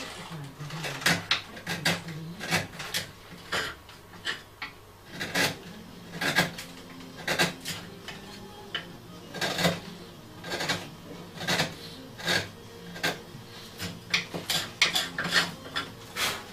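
A small metal-shafted hand tool scraping and clicking against a wooden melody box as it is worked on. The short, sharp strokes come irregularly, about one a second, sometimes two in quick succession.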